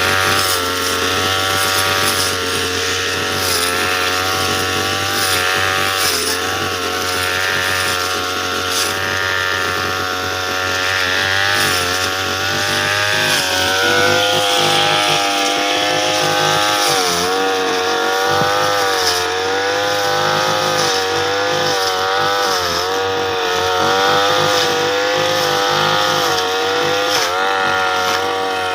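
Petrol brush cutter engine running at high speed, its pitch dipping and recovering again and again as the blade cuts into the grass.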